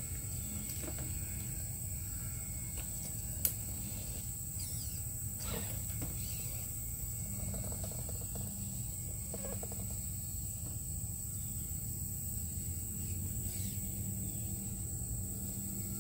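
RC scale crawler truck crawling slowly over creek rocks: a faint electric-motor hum that comes and goes, a few scrapes, and one sharp click a little over three seconds in. A steady high insect drone runs underneath.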